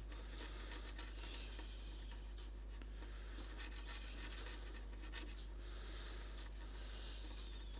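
Cloth rubbing paint off a bakelite radio case: a soft scrubbing hiss that swells in a few long passes.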